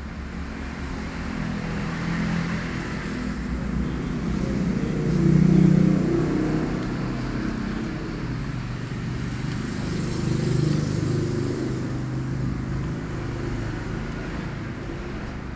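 Motor vehicle engines going past, rising to their loudest about five seconds in and again around ten seconds, over a steady traffic hiss.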